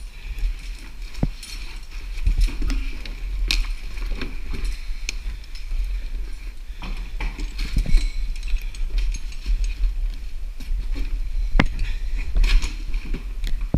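Scattered sharp knocks and clicks at irregular intervals over a steady low rumble.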